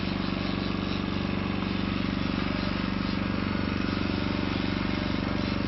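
Boat engine running steadily, a low even hum with a fast regular pulse.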